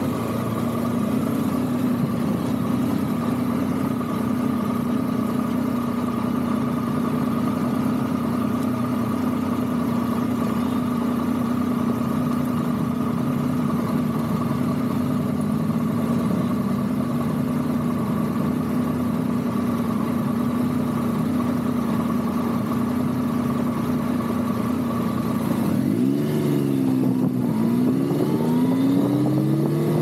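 Triumph Tiger 1050 Sport's inline-three engine through an SC-Project SC1-R titanium muffler, running at steady revs, then about 26 seconds in the revs rise and fall several times.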